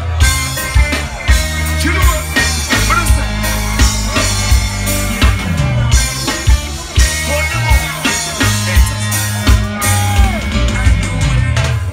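Live reggae band playing loud through the PA: a heavy bass line and drum kit driving a steady groove, with electric guitar and keyboards over it.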